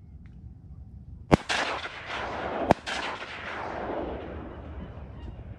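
Two shotgun shots about a second and a half apart, fired at ducks flying in, each followed by a long echo that fades away over a couple of seconds.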